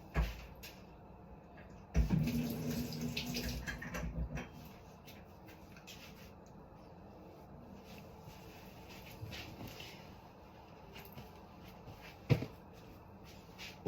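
A splash of milk being poured for about two seconds, with a thump just before it and a single sharp knock near the end.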